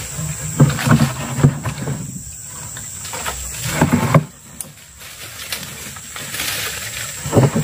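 Large wire-mesh fish trap being hauled up out of a river beside a wooden boat. Its frame knocks and rattles several times, and water runs off it near the end.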